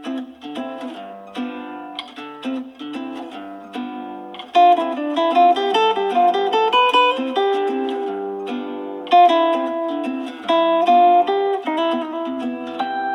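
A Samsung Galaxy S6 edge+ ringtone: a melody of plucked-string notes that starts after a short pause and grows louder and fuller about four and a half seconds in.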